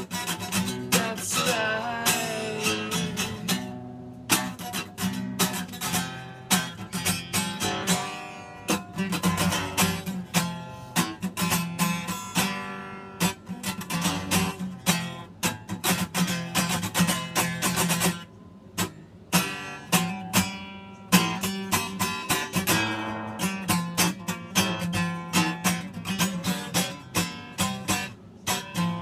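Acoustic guitar strummed in a steady rhythm, an instrumental passage with no singing, easing off briefly a little past the middle.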